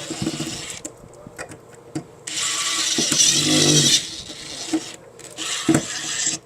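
A handheld power tool's motor runs in three bursts: one at the start, a longer one from about two seconds in to four, and a short one near the end.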